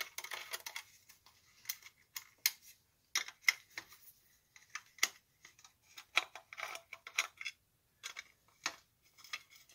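Irregular light clicks and clinks of small tools and parts being handled on a plastic fluorescent magnifying lamp housing as it is opened up.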